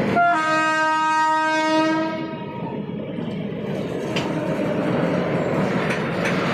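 Oil tank wagons of a freight train rolling past with a steady rumble and wheel clatter on the rails. A locomotive horn sounds one blast of about two seconds near the start, and a few sharp clacks come later.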